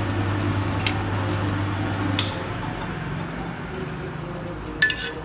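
Pillar drill press motor humming steadily with the bit just through a metal strip; the hum drops away about two seconds in. Light metallic clinks follow, then a sharp ringing metal clank near the end as the strip is lifted off the table.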